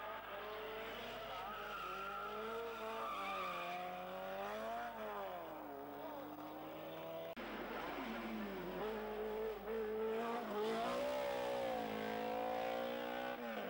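Race car engines accelerating hard uphill, the pitch climbing and dropping with each gear change. First a saloon car with its tyres squealing as it slides through a hairpin, then, after an abrupt cut about seven seconds in, an open sports-prototype race car.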